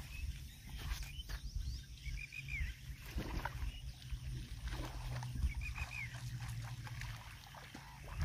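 Wind rumbling on the microphone at open water, over a faint steady hum. A bird calls twice, each call a quick run of three or four high chirps, once about two seconds in and again near six seconds.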